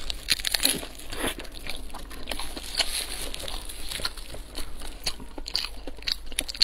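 Close-up crunching and chewing of a crispy fried food with a flaky crust: a bite early on, then many sharp crackles as it is chewed.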